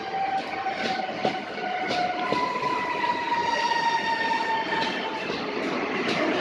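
CPTM Série 9000 electric commuter train moving slowly past, its traction motors whining in several tones that fall slowly in pitch as it slows. A few wheel clicks over rail joints about one to two and a half seconds in.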